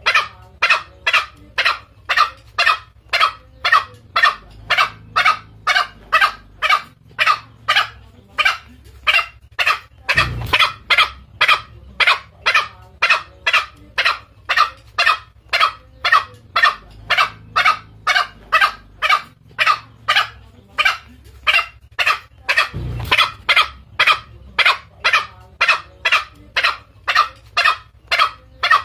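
Green junglefowl lure call: short, sharp calls repeated evenly about twice a second, used to draw in a male. Two dull low thumps sound underneath, about ten seconds in and again near the end.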